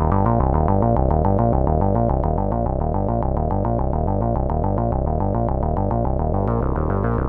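Behringer MS-1 analog monophonic synthesizer, an SH-101 clone, playing a fast repeating pattern of short notes over a pulsing bass line, with no effects. The filter closes down at the start, darkening the tone, and opens again to a brighter sound about six and a half seconds in.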